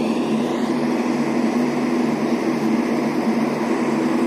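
Steady running drone of a train, with a low hum that pulses about twice a second under a constant mechanical noise.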